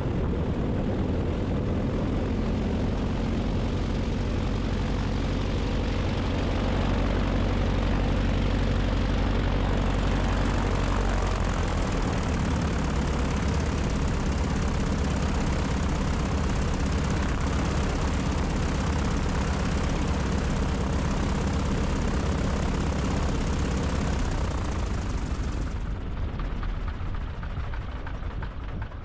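Beech 18's twin radial engines and propellers running with a steady, deep drone. The pitch of the engine note shifts about twelve seconds in, and near the end the sound turns duller and quieter.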